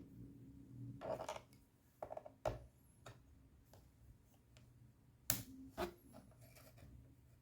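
Laptop and small tools being handled during an SSD upgrade: a few irregular clicks and taps, the sharpest about five seconds in.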